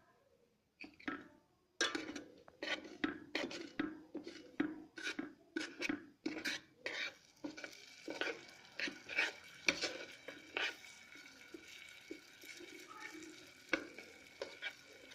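A spoon stirring semolina in butter inside an electric kettle, scraping against the pot in quick strokes, about two a second, which thin out in the second half. The semolina is being roasted and kept moving so it doesn't stick. A faint steady hiss sets in about halfway.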